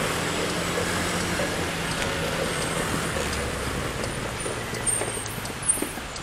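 Motor vehicle engines and road noise in slow-moving city traffic: a steady low engine drone over a constant rush, easing off over the last couple of seconds, with one short knock near the end.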